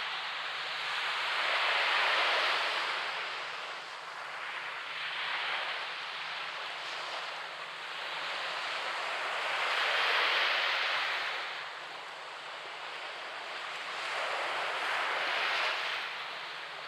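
Gulf of Mexico surf breaking on a sandy beach: a continuous wash that swells and fades as each wave comes in, with four breaks, the loudest about ten seconds in.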